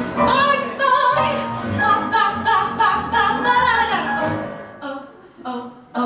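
A woman singing a cabaret song live, backed by piano, guitar, bass and drums. The phrase dies away about four seconds in, with a couple of short notes before the end.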